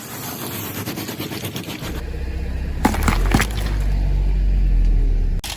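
Car tyre rolling onto objects and crushing them: crackling at first, then the car's low rumble building, with a couple of sharp cracks about three seconds in. The sound cuts off abruptly near the end.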